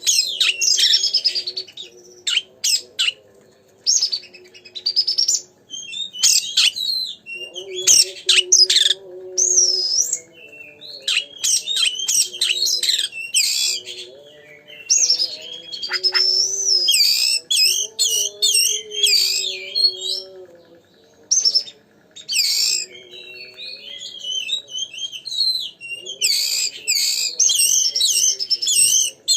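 Oriental magpie-robin (kacer) singing loudly and without pause, in fast, varied phrases of whistles, chirps and trills.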